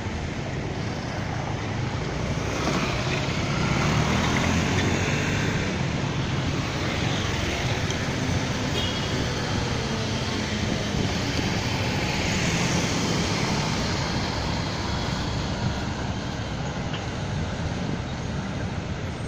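City street traffic noise: cars and other motor vehicles running and passing on a busy boulevard, a steady wash of engine and tyre sound that swells a few seconds in and again past halfway.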